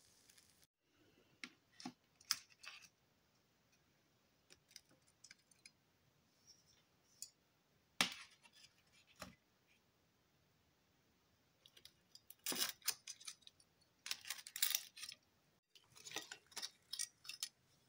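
Metal kitchen tongs clicking and scraping against a metal baking sheet and a ceramic plate as broiled lobster tails are picked up and set down. Scattered light clicks, one sharp click about eight seconds in, then quick clusters of clicks in the last few seconds.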